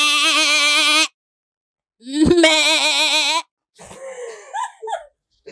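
A person's voice making a long, held, wavering note, a funny vocal sound, given twice with a pause between, followed by softer broken voice sounds near the end.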